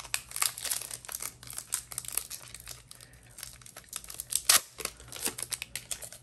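Wrapper of a 2020 Panini Certified football card pack crinkling and tearing as it is ripped open by hand, in a run of short crackles, the sharpest about four and a half seconds in.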